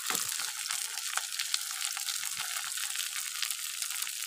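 Pieces of pointed gourd frying in hot oil in an iron kadai: a steady sizzle with many small crackles.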